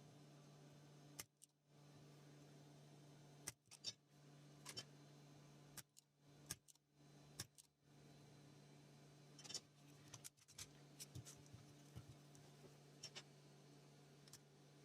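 Faint, scattered clicks and taps of hand tools against a circuit board while a USB connector is desoldered, over a steady low hum.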